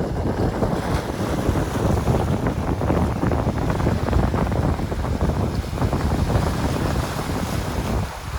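Wind buffeting the microphone outdoors, a loud low rush with uneven gusts.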